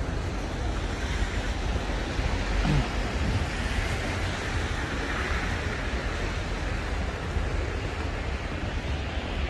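Steady outdoor city-street ambience, an even wash of background noise with wind rumbling on the microphone.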